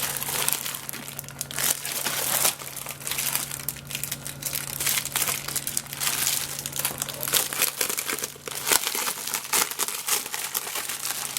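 Plastic packaging crinkling and rustling in irregular bursts as it is handled and pulled open to take out a fountain's spill mat. A faint low hum underneath cuts out a little before the end.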